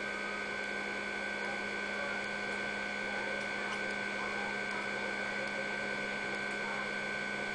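IBM PS/2 P70 portable computer running: a steady machine hum with a constant low tone and two faint high-pitched whines.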